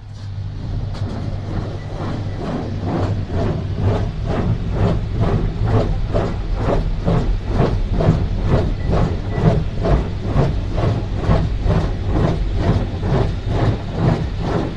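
Automatic car-wash rotating brushes beating and scrubbing against the car body, heard from inside the cabin. The brushes set in suddenly and keep up a fast, even beat of about two to three strokes a second over a steady low hum.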